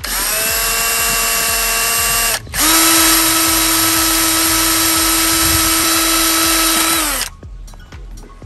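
Electric drill motor spinning up and running with a steady whine for about two seconds, stopping briefly, then running again for about five seconds at a lower pitch before winding down.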